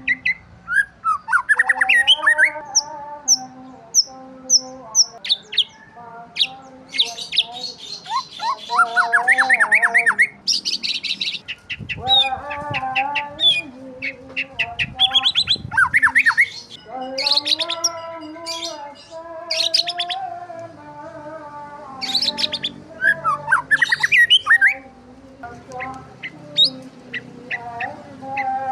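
Many songbirds chirping and calling over one another, with rapid trills, quick rising whistles and some harsher squawking calls mixed in.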